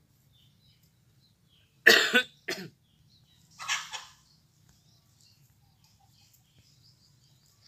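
A man coughing: a loud harsh cough about two seconds in, a shorter one right after, and a breathier cough near four seconds.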